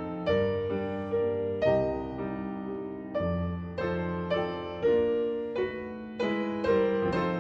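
Background piano music, with notes and chords struck about once a second and each dying away.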